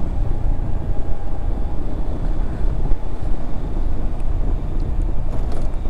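Yamaha XMAX 250 single-cylinder scooter at road speed on a downhill stretch, its engine and tyre noise under a steady rush of wind on the helmet microphone.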